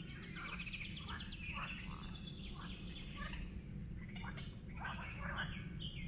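Frogs croaking in a chorus, many quick pulsed calls overlapping and thickening near the end, over a steady low rush.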